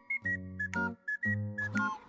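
Background music: a short melodic phrase of held notes over a bass line, with a high whistle-like lead and no percussion.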